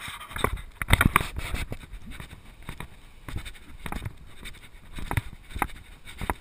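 Footsteps crunching on beach sand, an irregular run of soft thumps and scrapes, picked up by a body-worn action camera that also rubs and knocks on its mount.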